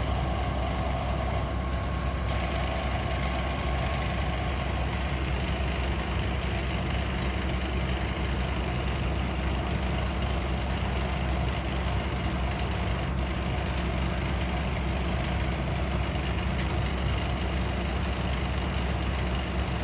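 Excavator's diesel engine running steadily at idle, a constant low drone.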